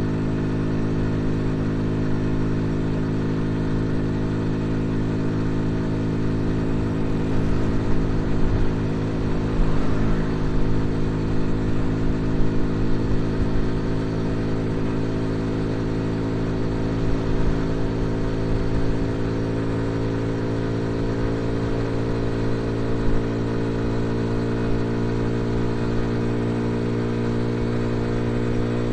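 Dayun Flasher 200 motorcycle engine running at a steady cruise, heard from the rider's seat, its pitch holding nearly level. It gets somewhat louder and more uneven from about eight to thirteen seconds in, then settles again.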